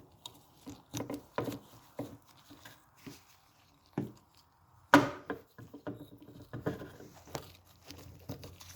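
Scattered light clicks, taps and rubbing from hands working a new rubber gasket seal onto the oil filter housing cap, rolling it into its groove, with one sharper knock about five seconds in.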